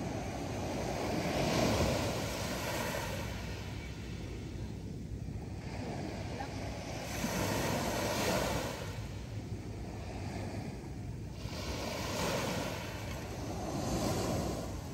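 Small sea waves breaking on a sandy, pebbly shore and washing back. The surf swells and fades three times, about five seconds apart.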